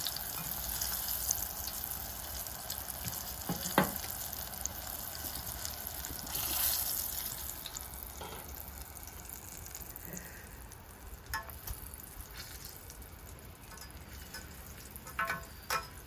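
Corn-flour-coated cicadas deep-frying in hot oil in a small saucepan: a steady sizzle that fades gradually through the second half. A single sharp tap about four seconds in.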